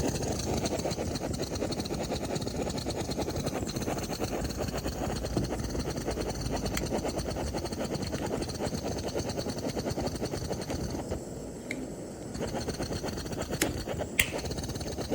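Butane torch flame burning with a steady rushing roar, followed near the end by a few sharp clicks.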